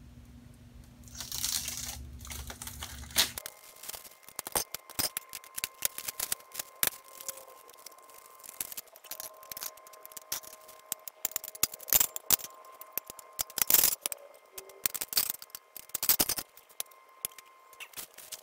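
Hard plastic grow-tent frame connectors and poles being handled and sorted, giving many irregular clicks and clacks, with crinkling of a plastic parts bag.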